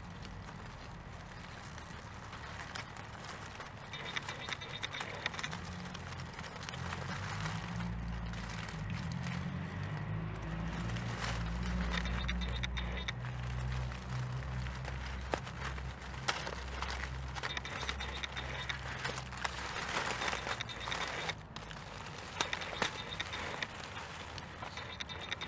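1/10-scale RC rock crawler with a brushless motor, its motor and drivetrain whining in short stretches as it crawls at low speed. Dead leaves and twigs crackle and snap under the tyres.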